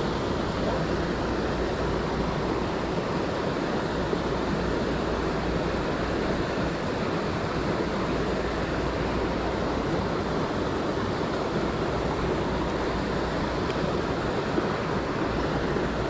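River rapids and a small falls rushing over boulders: a steady, unbroken rush of water.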